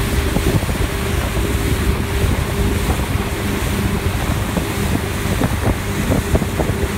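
Motorboat engine running steadily at towing speed, with wind buffeting the microphone and the rush of the boat's wake.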